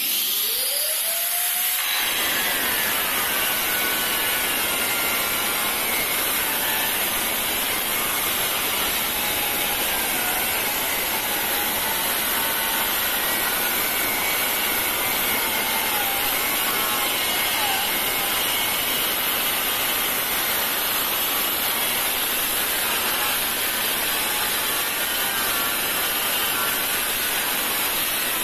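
Handheld electric angle grinder cutting a ceramic floor tile. The motor whines up in pitch in the first second, then a steady, harsh grinding begins about two seconds in, with the motor's whine wavering as the disc is pushed through the tile.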